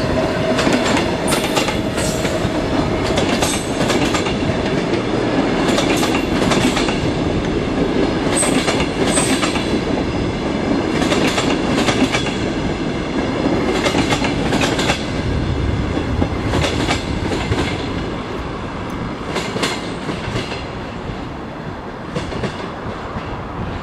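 Passenger train of coaches behind an electric locomotive passing close by: a steady rumble of steel wheels on rail, with repeated clicks as the wheels cross rail joints. It grows a little quieter over the last few seconds as the train draws away.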